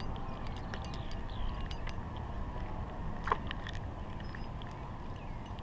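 Wind rumbling on a chest-mounted camera microphone, with scattered light metallic clicks and clinks from the spinnerbait's blade and wire as a hooked largemouth bass is held up; one sharper click about three seconds in.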